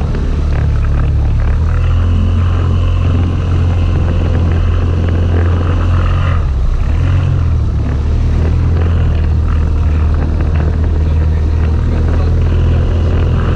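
Boat outboard motor running steadily at speed, under the rush of wind and choppy water; the engine note shifts briefly about halfway through.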